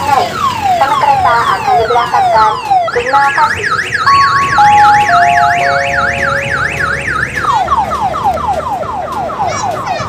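Odong-odong tourist train's electronic siren, loud, cycling through its patterns. First come quick falling sweeps, then about three seconds in a fast up-and-down warble with a few held notes stepping down in pitch, and after about seven and a half seconds rapid falling sweeps again.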